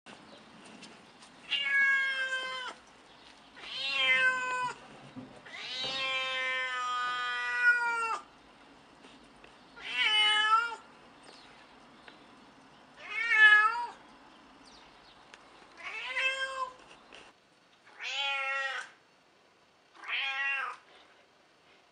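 Elderly domestic cat, about 14 years old, meowing loudly and repeatedly: eight separate meows a second or two apart, the third a long, drawn-out one of about three seconds.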